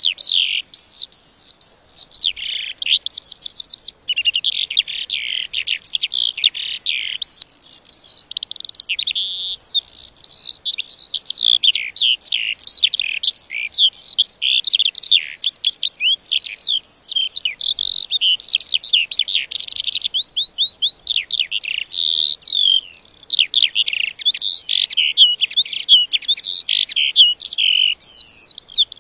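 A lark singing a long, unbroken song of rapid high chirps, trills and warbles that changes phrase constantly.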